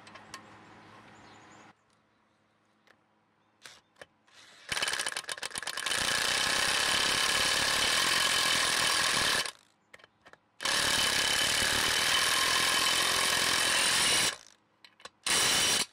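Hilti SIW 6-22 cordless impact wrench hammering the propeller nut onto a boat outdrive's prop shaft to tighten it. It comes in two long runs, the first about five seconds in and lasting about five seconds, the second about three and a half seconds long, then a short burst near the end.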